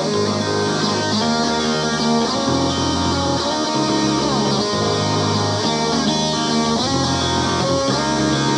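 Electric guitar and bass guitar playing an instrumental passage together, with no vocals. The bass line moves between low notes under the guitar's chords.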